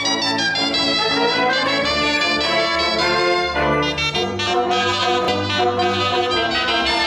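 A cobla playing a sardana: tibles and tenores with trumpets, trombone and fiscorns over a double bass, brass to the fore. The music is continuous, with held and moving notes and a heavier bass line from about halfway through.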